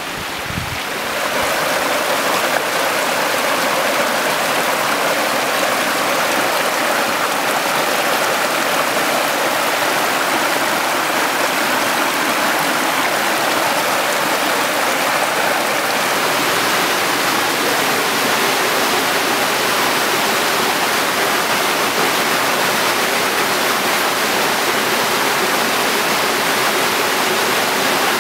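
Creek water rushing and splashing over boulders in small cascades: a steady, even rush with no break. A little wind rumbles on the microphone at the very start.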